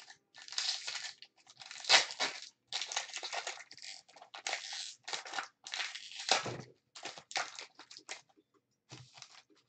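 Foil wrapper of a 2015 Panini Prizm baseball card pack being torn open and crinkled by hand, in irregular crackling bursts, loudest about two seconds and six seconds in.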